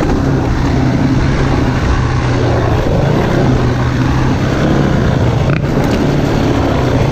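Dirt bike engine running at a steady pitch while riding a bush trail, with heavy wind and riding noise on the microphone.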